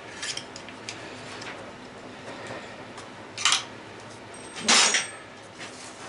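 Metal housing of a garbage disposal scraping and clinking as it is worked loose and lifted apart. There are a few light clicks, then two short scrapes a little over a second apart, the second louder.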